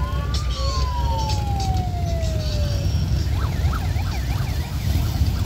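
Harley-Davidson V-twin motorcycles running past in a slow procession with a deep, steady rumble. Over it a siren sounds: first one tone rises, then slides slowly down for a couple of seconds, then it warbles rapidly up and down about three times a second.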